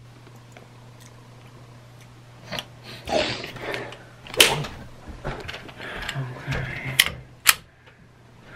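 Handling noise: a run of sharp clicks and clacks mixed with rustling, starting about two and a half seconds in, over a low steady hum.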